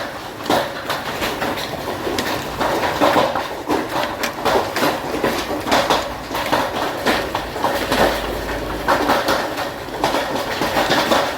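Hailstones pelting hard surfaces in a hailstorm: a loud, dense, irregular clatter of many small impacts.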